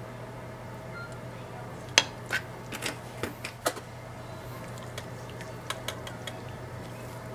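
A metal whisk and spoon clinking against a ceramic clay pot as miso and soy sauce are whisked into broth. There is a run of sharp clinks about two seconds in and a few more near the end, over a steady low hum.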